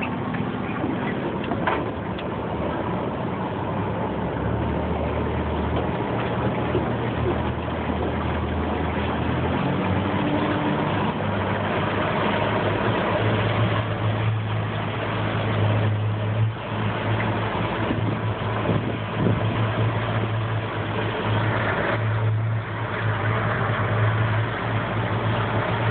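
Boat engine running steadily, a constant low hum over a noisy rush, with a slight change in the hum about six to ten seconds in.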